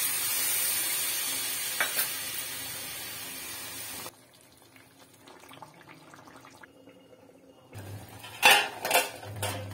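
Water hissing and sizzling as it hits hot oil and masala in a steel kadhai, fading over about four seconds, with a spatula tap about two seconds in. The sound then drops away abruptly, and near the end come several sharp metallic clinks on the pan.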